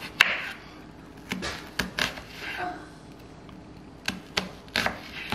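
Chef's knife slicing a halved onion, making lengthwise cuts that stop short of the root end. Each stroke ends in a sharp knock on the cutting board, about eight at an uneven pace, with a pause of about two seconds in the middle.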